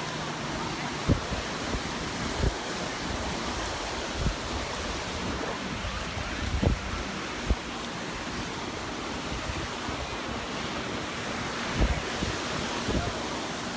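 Gulf of Mexico surf washing steadily onto the beach, with wind buffeting the microphone in a few irregular low thumps.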